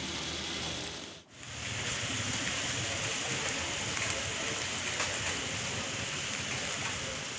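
Heavy rain falling onto a flooded street, a steady hiss of rain on standing water that briefly cuts out about a second in.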